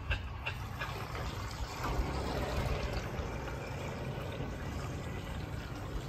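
Robotic pool cleaner running at the pool's waterline, its water jet splashing and trickling steadily over a low rumble.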